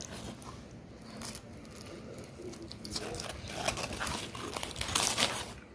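Biting into and chewing a BBQ chicken sandwich on bread with a hard toasted crust, giving irregular crunching and crackling, loudest near the end.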